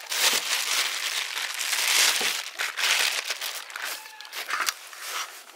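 Crinkling and rustling of something being handled, loudest in the first three seconds and then quieter.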